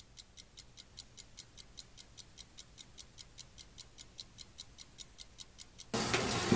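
Clock ticking steadily and quickly, about five ticks a second. A louder steady noise comes in near the end.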